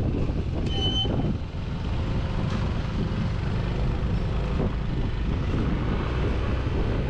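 Scooter riding noise: a steady low rumble of engine and wind on the microphone while under way. A short high-pitched tone sounds briefly about a second in.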